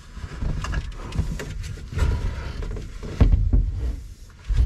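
Knocks and scraping from a cogged drive belt being worked by hand onto the belt pulley of an Argo 750 HDI ATV, the pulley being turned over to roll the belt on. There are several sharp knocks, the loudest a little past three seconds in.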